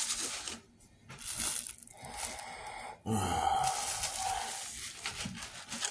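Foam takeout clamshell container handled close to the microphone: rustling and scraping in several bursts, the longest a few seconds in.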